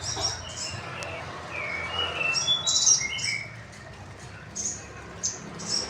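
Caged songbirds chirping and calling: a string of short, high chirps mixed with a few brief falling whistled notes.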